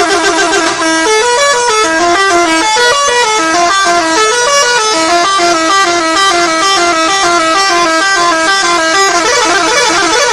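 Indonesian bus 'telolet' musical horn playing a quick tune of short stepped notes, several pitches sounding together. Near the start and again near the end the notes run together into a denser blur of tones.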